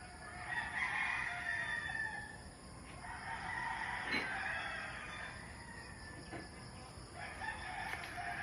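Several roosters crowing at dawn, long overlapping cock-a-doodle-doo calls from more than one bird.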